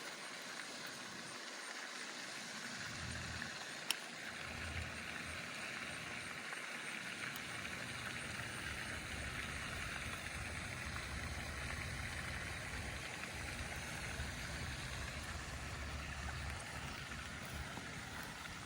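Outdoor ambience: a steady faint hiss, with low rumbling from wind gusts on the microphone that comes and goes, and a single sharp click about four seconds in.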